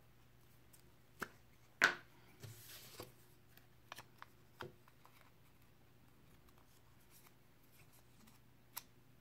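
Faint handling noises of paper craft pieces and a glue stick on a paper-covered table: scattered light taps and clicks, a sharper click just under two seconds in, and a short paper rustle about half a second later.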